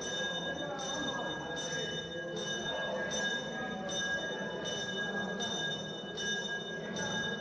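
A bell rung repeatedly, about three strikes every two seconds, its tones ringing on between strikes over a low background murmur.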